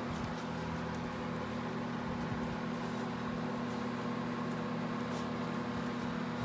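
Steady mechanical hum with a low pitched drone, with a few faint clicks over it.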